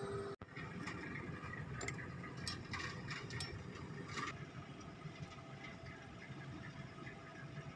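Metal clicks and ticks of a wrench working the fittings on an excavator's hydraulic control valve block, a cluster of sharp ticks in the first half over a steady low background. A steady hum cuts off abruptly near the start.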